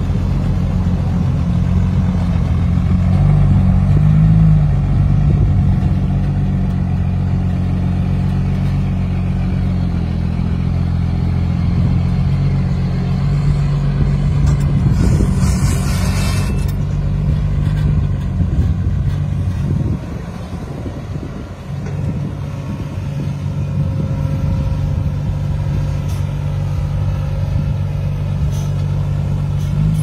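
Diesel engine of a ten-wheel dump truck running as it drives slowly over rough dirt, a steady low drone throughout. A brief hiss of air about halfway through, and the engine note drops for a couple of seconds a little later before picking up again.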